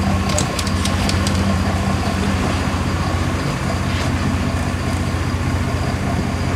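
A boat's engine running steadily at sea, a low drone under a constant hiss of wind and water.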